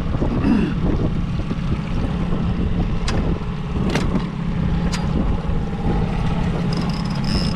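Boat outboard motor running steadily at trolling speed, with wind buffeting the microphone and three sharp clicks about a second apart midway through.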